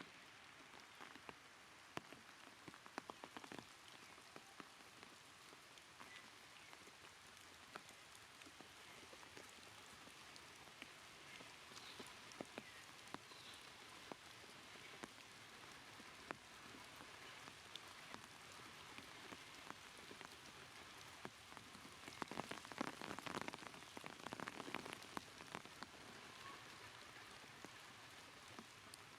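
Faint steady rain patter with scattered drips, and a stretch of louder, denser crackling about 22 seconds in.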